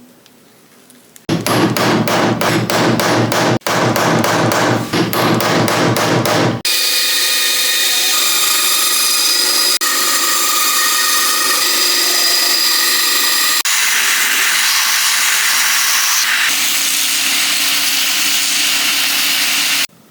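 Shop power tools drilling rivet holes and cutting out a Kydex sheath: first a tool working in rapid, evenly spaced strokes for about five seconds, then a motor running with a steady whine, then another machine running steadily until it stops abruptly near the end.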